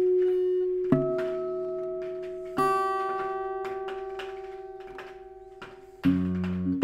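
Steel-string acoustic guitar in Stauffer style, with a spruce top and rosewood back and sides, played slowly. Notes and chords are plucked about a second in, about two and a half seconds in and near the end, each left to ring and die away. The middle one is held for about three seconds with a wavering vibrato.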